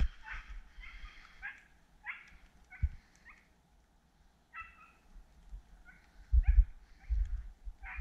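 Beagle giving short, repeated yelps while running a rabbit's trail, several calls with bends in pitch. Low bumps on the microphone a few times in the second half.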